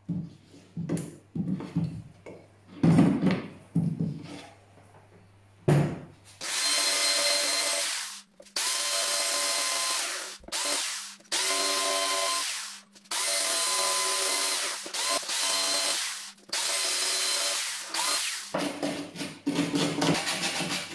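A compact router's body knocking and scraping against the edges of a cutout in a workbench top as it is test-fitted. Then a Parkside corded jigsaw cuts along the edge of the opening in about six runs with short pauses. Near the end, quick repeated strokes of sandpaper rubbed by hand along the cut edge.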